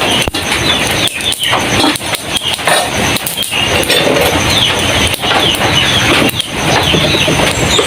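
Heavy rain drumming on a tin roof, a loud steady noise, with birds giving many short falling chirps over it.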